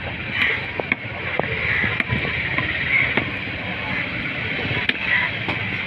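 A long knife chopping a white mattiyan fish on a wooden block: a few sharp, irregularly spaced knocks over a steady background hiss.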